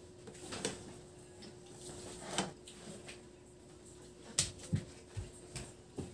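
Faint, scattered clicks and taps of a meal at a table, dishes and utensils being handled, a few more close together near the end, over a low steady hum.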